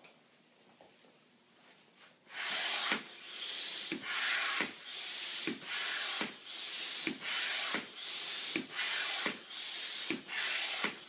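Floor-standing hand air pump inflating a balloon: a hiss of rushing air on each stroke, about one stroke every 0.8 seconds, each with a short click, starting about two seconds in.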